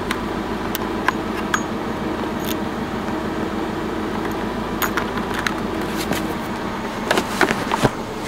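Scattered clicks and rattles of a scan-tool cable and its 15-pin plug being handled and pushed into a handheld OBD-II scanner, with a cluster of clicks near the end. A steady hum runs underneath.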